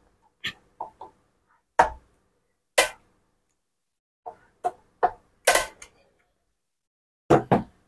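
Torque-limiting screwdriver set to 2 newton metres clicking as it slips at its set torque on steel scope-ring screws, about a dozen sharp clicks at irregular intervals, some in quick pairs. Each click is the sign that the screw has reached its set tightness.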